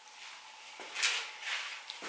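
A window sill being pried up off its bed of polyurethane foam and silicone, giving a few short scraping, crackling rasps, the loudest about a second in.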